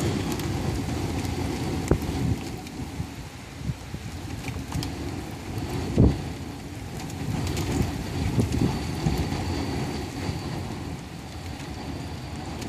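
Rain falling steadily in a desert thunderstorm, heard as an even rushing hiss with scattered sharp ticks. Gusts of wind hit the microphone with low thumps, the loudest about six seconds in.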